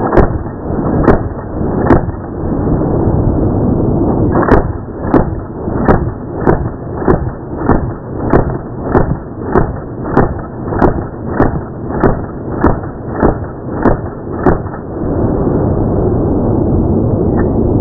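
Thompson submachine gun fire slowed far down, heard as a muffled, deep run of about seventeen evenly spaced shots, a little more than one a second, after three scattered shots at the start, over a steady rushing background. The shots stop about two-thirds of the way through.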